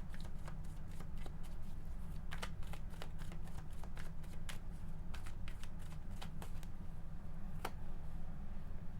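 A deck of tarot cards shuffled by hand: a long run of irregular soft clicks and riffles, over a steady low hum.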